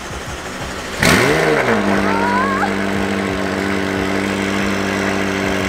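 McLaren 570S's twin-turbo V8 cold-starting on a race tune: it fires about a second in with a loud flare of revs that rises and falls, then settles into a steady high cold idle.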